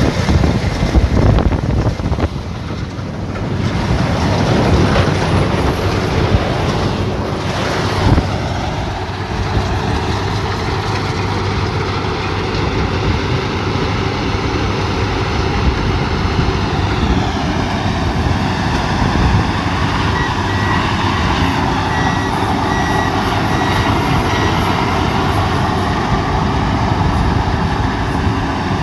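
Combine harvester running steadily under load, with a continuous engine drone and machinery noise.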